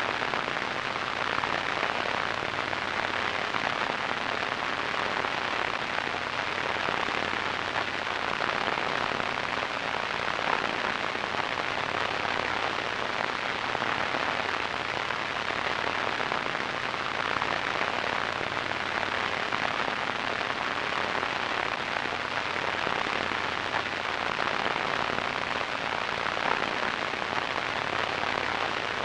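Radio static: a steady, even hiss with a faint crackle, strongest in the middle and upper-middle range and tapering off in the highest treble.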